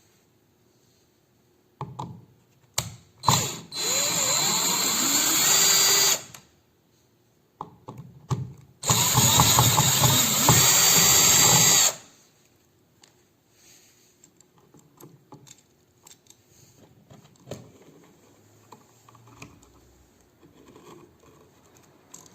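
Cordless drill-driver backing out an electrical outlet's two mounting screws, one after the other: two runs of about three seconds each with a pause between, the motor's whine rising as it spins up on the first. Light clicks of the bit being set come before each run.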